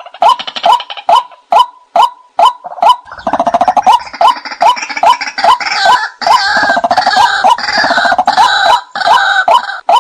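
White-breasted waterhen decoy call: a loud, rhythmic 'kwak' repeated about twice a second. From about three seconds in until near the end, a denser chorus of overlapping calls joins it.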